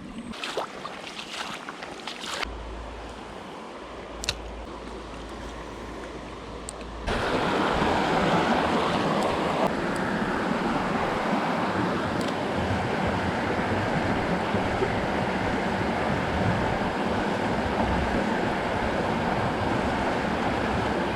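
Creek water flowing, a steady rushing noise that jumps suddenly much louder about seven seconds in and then holds. Before the jump it is quieter, with a few light clicks.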